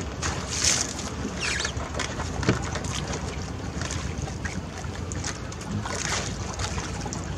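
Water sloshing and splashing around the PVC-pipe floats of a homemade raft-kayak as a man's weight comes onto it, over a steady rumble of wind on the microphone. A single sharp knock about two and a half seconds in.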